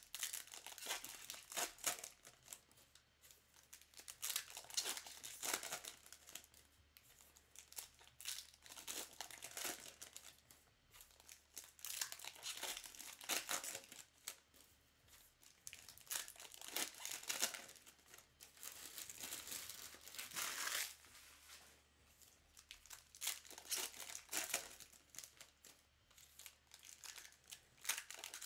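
Foil trading-card pack wrappers being torn open and crinkled by hand, in irregular bursts of rustling.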